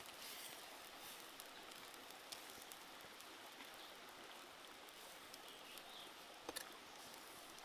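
Faint bubbling and simmering of eel soup boiling in a pot, with scattered light ticks and a short cluster of sharper clicks near the end.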